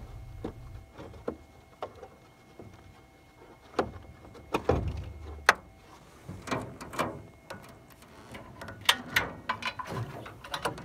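Scattered clicks and knocks from someone shifting about in a metal jon boat and handling the mud motor's tiller, with louder ones around the middle and near the end.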